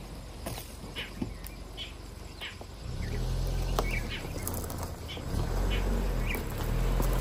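Suzuki Jimny 4x4's four-cylinder petrol engine running at low speed as the vehicle crawls over rough ground, coming in about three seconds in and growing louder. Short bird chirps sound throughout.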